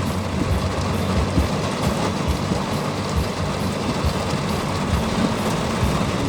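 Steady noise of a car being driven: engine hum and tyre noise on the road.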